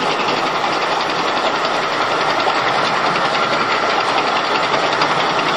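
Tank engine sound: a steady mechanical running noise with a fast, even rattle.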